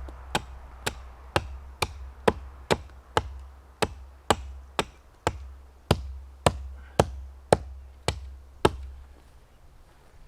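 Hultafors Hunter's Axe chopping into the trunk of a small standing tree: about seventeen sharp, even strikes at roughly two a second, stopping shortly before the end.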